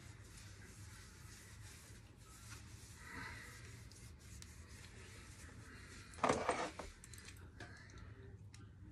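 Soft rubbing of a rag wiped around a motorcycle's rear swinging arm and shock mount, then a brief clatter of hand tools about six seconds in.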